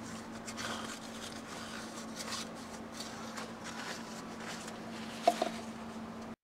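Rag wiping the crankcase mating surface of a Yamaha AT2 125 engine with acetone: faint, irregular rubbing strokes over a steady low hum. A short sharp click a little after five seconds.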